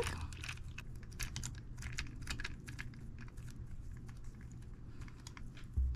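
Small, irregular plastic clicks and rubbing as the winch drum of a Playmobil toy ATV is turned by hand to wind up its string rescue rope.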